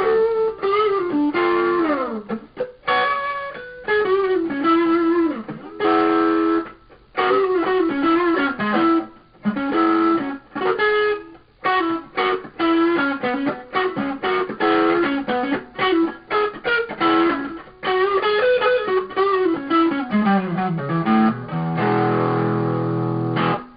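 Overdriven electric guitar, a Xaviere XV 870 with GFS Neovin pickups played through a Crate VC 508 amp, playing bluesy single-note lead phrases with slides and bends. Near the end a descending run leads into a held chord that is cut off just before the end.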